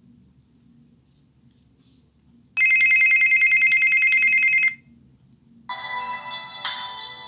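Samsung Solstice SGH-A887 mobile phone ringtones: after a near-silent start, a loud electronic trilling ring, a high tone pulsing very fast, sounds for about two seconds and stops; after a short pause a different, melodic ringtone of several notes begins near the end.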